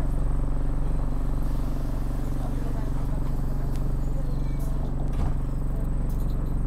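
Diesel bus engine idling steadily, heard from inside the passenger cabin, with a few faint clicks and rattles.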